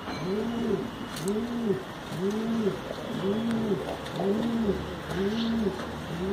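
Domestic pigeon cooing over and over, about one coo a second, each coo rising then falling in pitch.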